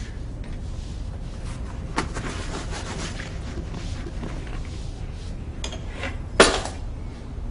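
Someone rummaging and packing papers and a notebook into a bag: rustling and handling noises over a steady low hum, with a sharp knock about two seconds in and a louder, brief clatter near the end.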